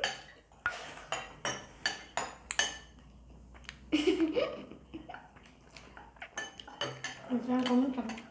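Spoons and chopsticks clinking and scraping against ceramic rice bowls and plates during a meal, in many short, irregular clicks. Brief murmured voices come about four seconds in and near the end.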